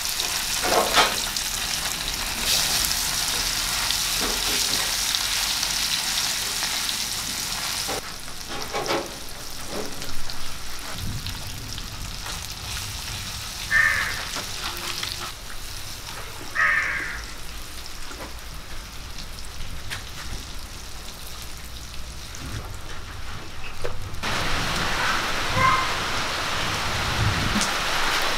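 Marinated sardines sizzling as they fry in hot oil in a clay pan, a steady crackling hiss that is softer through the middle stretch, with a few light knocks from a metal spatula turning the fish.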